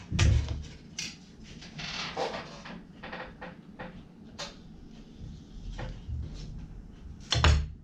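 Irregular knocks and clatter of a boning knife and fish pieces being worked on a plastic cutting board, with the heaviest thuds just after the start and near the end.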